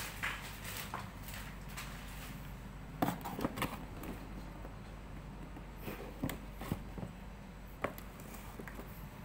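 Handling noises as a cardboard box is moved around: a cluster of knocks and taps about three seconds in, and a few more scattered between six and eight seconds in, over a low steady room hum.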